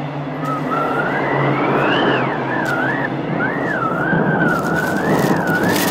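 A single high whistle glides up, then wavers up and down in slow swoops over a steady hiss.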